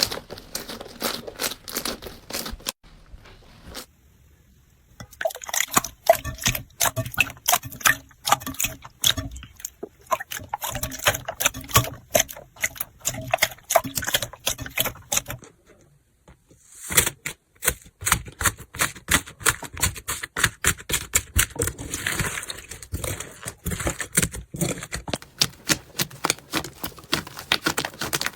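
Slime being squeezed, poked and pressed by hand, giving dense rapid crackling and popping clicks, typical of crunchy slime. The sound breaks off briefly twice, about four seconds in and again past the middle.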